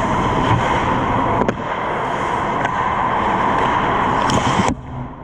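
Ice hockey rink ambience heard from the goal net: a steady rushing noise with a couple of sharp clicks, dropping away suddenly near the end.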